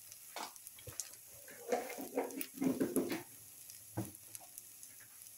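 A plastic spatula scraping and tapping in a frying pan, a few short knocks with a denser run of scraping in the middle, over a faint sizzle of spices and onions frying in oil.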